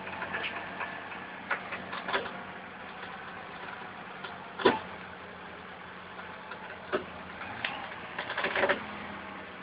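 Nissan King Cab pickup's engine running steadily at low revs as a low hum, with scattered sharp knocks over it, the loudest about halfway through and a quick cluster near the end.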